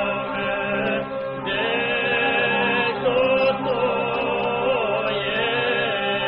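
Macedonian folk song sung by voices over a steady held low drone note, the melody line winding above it.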